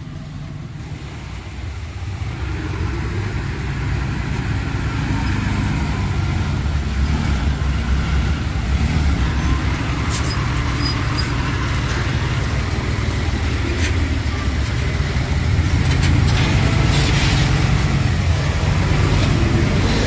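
Komatsu D31P bulldozer's diesel engine running, getting louder over the first few seconds and then holding steady, with a few brief clanks in the second half.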